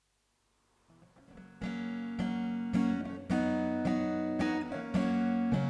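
Acoustic guitar playing a song's intro: a few soft notes fade in, then chords struck about twice a second from about a second and a half in.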